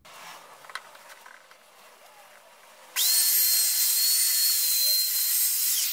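Handheld electric router with a chamfer bit, switched on about halfway in and running with a steady high whine as it chamfers the edge of an MDF oval.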